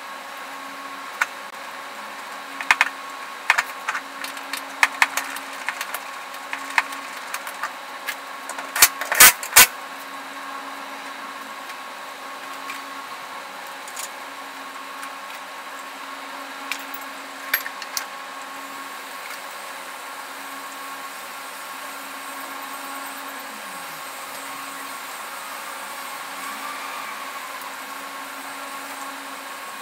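Hand tools clinking and knocking on the metal underside of a van on a lift. The strikes come in scattered bursts, with a loud cluster of knocks about nine seconds in and a few more near eighteen seconds. A steady workshop hum runs underneath.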